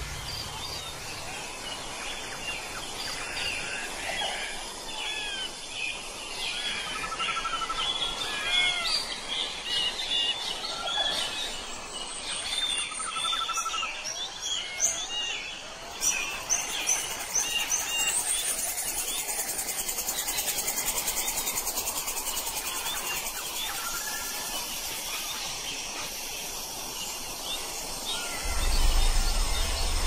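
Outdoor ambience with songbirds chirping and calling over and over. About halfway through the sound changes to a steadier high-pitched hiss, and a low rumble comes in near the end.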